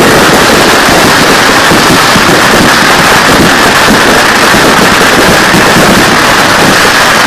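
Finale barrage of 1.3G display fireworks: many aerial shells bursting and crackling at once, merging into one loud, unbroken din.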